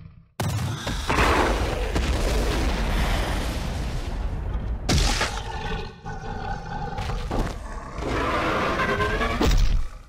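Dinosaur fight sound effects: animal roars over a heavy, continuous booming rumble. A roar with a clear pitch breaks in sharply about five seconds in, and another, rising roar comes near the end.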